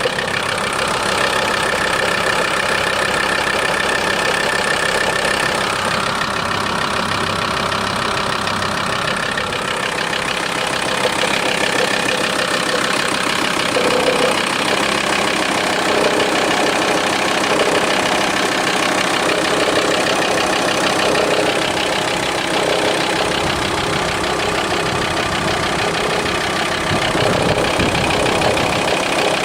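VW T4's 2.5 TDI (ACV) five-cylinder diesel idling steadily, with an extra mechanical noise at idle that goes away when the engine is given a little throttle.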